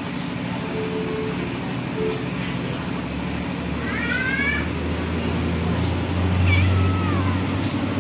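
Domestic cat meowing twice, a short call about four seconds in and a falling one about six and a half seconds in, over a low steady rumble that swells in the second half.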